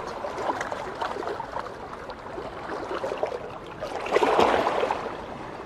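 Small sea waves washing and splashing over shoreline rocks, with a louder surge of water about four seconds in.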